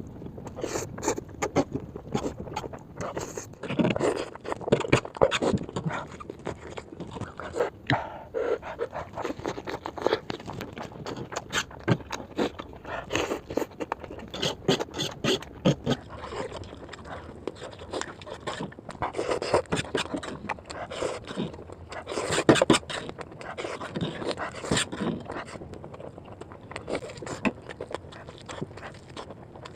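Close-miked eating of noodles: irregular wet chewing, with mouth clicks and smacks coming in quick clusters.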